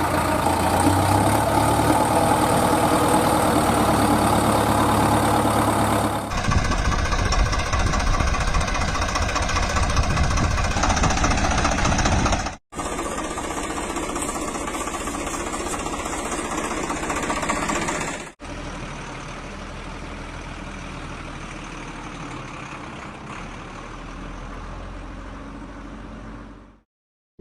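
Heavy truck or construction-machine engines idling and running, in several segments that cut abruptly from one to the next and get quieter each time, fading out near the end.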